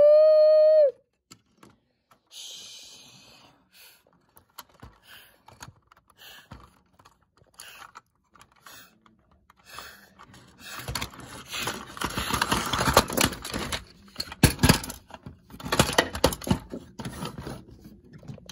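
A toy train whistle blowing one steady toot that cuts off about a second in. Then scattered clicks and knocks of toy trains being handled, building to a busy rattling clatter in the second half.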